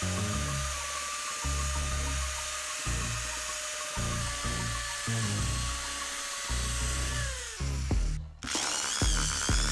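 Power drill spinning a metal disc on wet sandpaper over glass: a steady motor whine with grinding hiss, which drops in pitch and stops about three-quarters of the way through. Background music with a bass line plays throughout.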